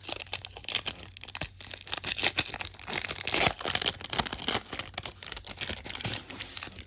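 Crinkly plastic wrapper of a baseball card pack being torn open and crumpled, a dense crackling rustle that is busiest in the middle.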